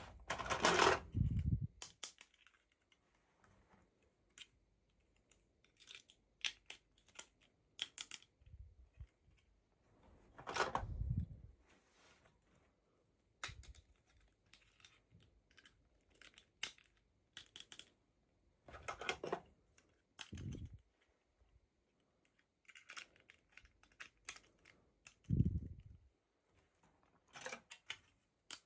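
Hands unboxing miniature dolls: scattered small plastic clicks and taps, with a few short rustles of packaging, in irregular bursts separated by quiet gaps.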